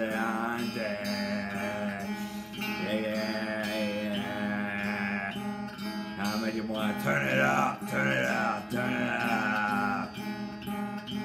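Electric guitar playing under a man's voice singing long, wavering notes without clear words.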